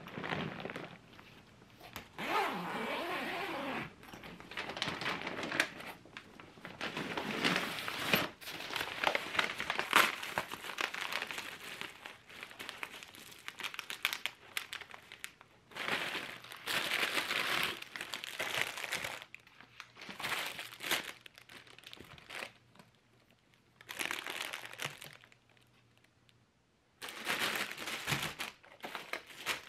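Plastic grocery packaging and bags crinkling and rustling in irregular bursts as groceries are unpacked by hand from a bubble-wrap-lined delivery bag, with a couple of short pauses near the end.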